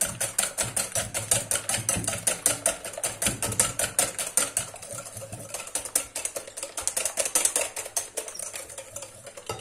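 Wire balloon whisk beating eggs and sugar by hand in a glass bowl, the wires clicking against the glass at about five or six strokes a second. The whisking slows and stops just before the end.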